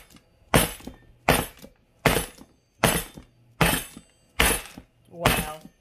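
A cake pan full of batter being knocked down hard, seven times in a steady rhythm about one every three-quarters of a second, each knock ringing briefly. It is the pan being banged to drive air bubbles out of the pound cake batter before baking.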